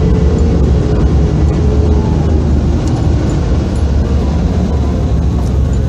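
Steady low rumble of road and engine noise heard inside the cabin of a Mitsubishi Xpander moving slowly.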